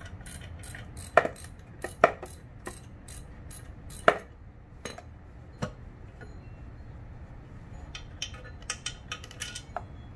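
Sharp metallic clicks and clinks from hand tools worked on a catalytic converter and exhaust manifold assembly. Three louder knocks come about one, two and four seconds in, and a quicker run of small clicks comes near the end.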